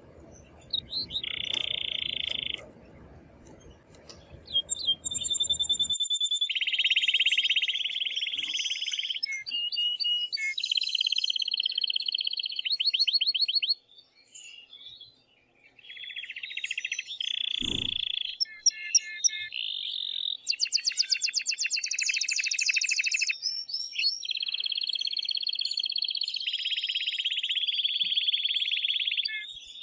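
Male canary singing loudly: long phrases of fast trills and rolls, with short pauses between them. There is a single sharp click about two-thirds of the way through.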